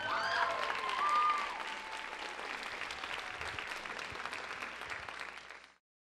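Audience applauding, with a few high cheers in the first second or so. The clapping cuts off suddenly near the end.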